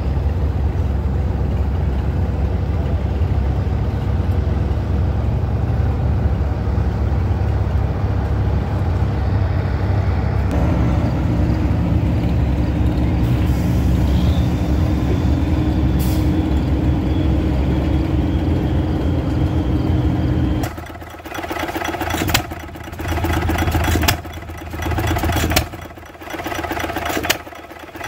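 Large Cooper-Bessemer stationary gas engine running steadily. About 21 seconds in this gives way to a small hit-and-miss farm engine, which runs in spells of a second or two with quieter gaps between.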